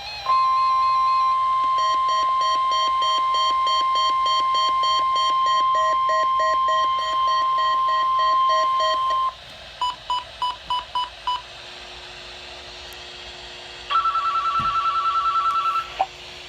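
NOAA Weather Radio warning alarm tone: a single steady 1050 Hz tone held for about nine seconds, sounding for a required weekly test. A few seconds after it, a short string of about six beeps, then near the end a quick run of rapid two-pitch pulsed beeps.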